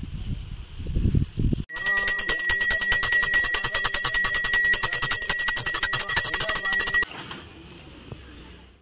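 Brass puja hand bell (ghanta) rung rapidly and continuously for about five seconds, its clapper striking many times a second over a steady ring, then stopping abruptly: the bell rung at a temple worship.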